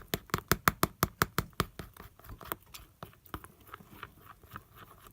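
A utensil stirring glue-and-borax slime in a bowl, clicking against the bowl about five or six times a second, then slower and fainter after about two seconds as the slime forms.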